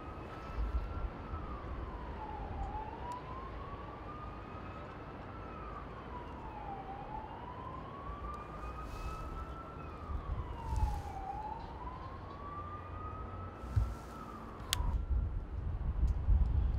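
A wailing siren, its pitch rising slowly and then dropping back about every four seconds, three and a half times over, and cutting off abruptly near the end.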